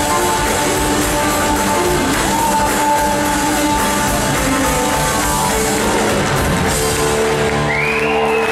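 Live rock band playing, with electric guitar, organ, bass and drums, heard from the audience in a large hall.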